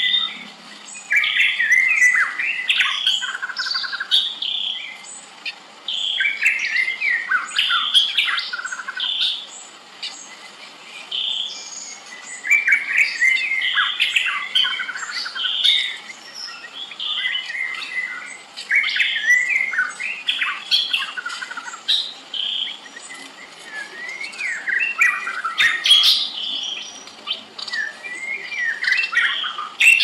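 Songbird song: varied whistled and warbled phrases with quick rises and falls, sung in bouts of a few seconds separated by short pauses.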